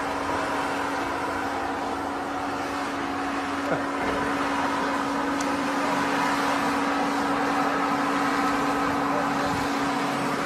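Engine of a heavy tracked forestry machine running steadily while the machine works up a steep slope, holding one constant pitch throughout.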